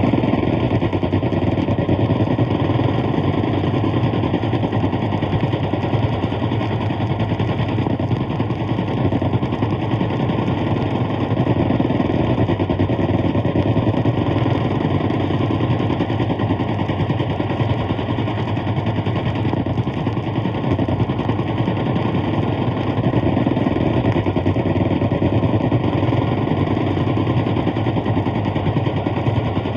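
Thompson submachine guns firing rapidly and without pause, heard from a 78 rpm sound-effects record with its narrow, dull recording.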